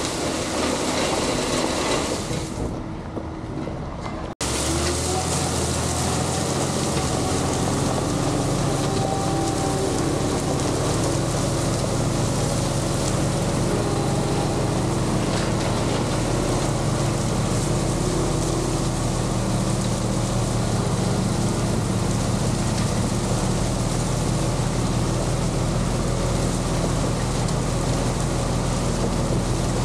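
Heavy equipment working gravel: an engine running steadily under a constant noisy rattle and rumble. The sound drops out for an instant about four seconds in and then goes on the same.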